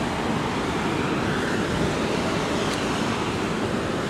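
Steady wind rushing and rumbling over the phone's microphone high up on an open skyscraper ledge.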